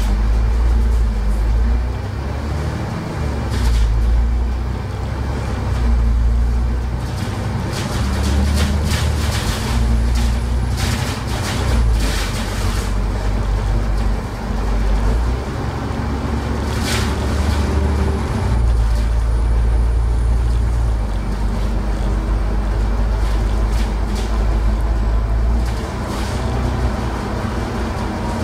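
Cabin noise of a moving Alexander Dennis Enviro500 MMC double-decker bus: a loud, low engine drone that swells and falls every few seconds with the throttle, with sharp clicks and rattles now and then, thickest around ten seconds in.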